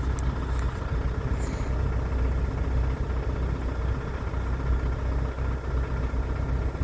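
Farm tractor engine running steadily with a low, even rumble.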